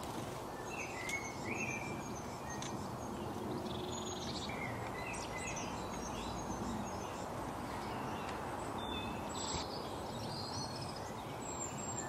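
Wild birds chirping, with many short, quick notes at varied pitches throughout, over a steady background rush of outdoor noise.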